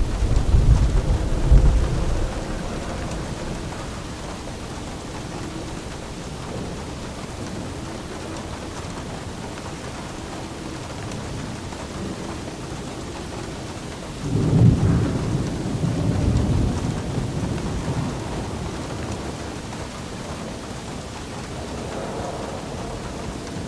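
Steady rain with thunder rumbling twice, once right at the start and again, loudest, about fourteen seconds in, fading over several seconds.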